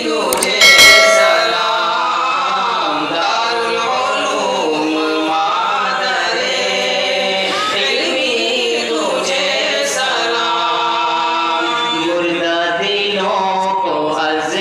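Voices singing a farewell tarana together as a choir, with a loud thump about a second in.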